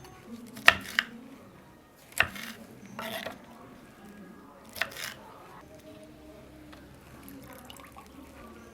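Coriander leaves being washed in water: a handful of short splashes and drips in the first five seconds.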